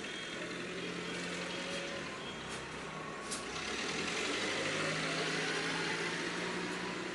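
Hakura Seiki HARD-70 single-slice bread slicer running with a steady motor hum, a sharp click about three seconds in, and a slight swell in the noise a second or so later.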